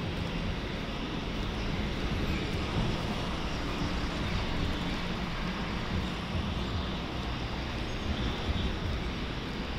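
Steady background rumble and hiss, with no distinct strokes or events standing out.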